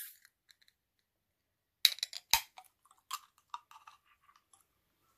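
Ring-pull tab of an aluminium can of sparkling water being worked open: two sharp clicks about two seconds in as the tab lifts and breaks the seal, then a few faint crackles.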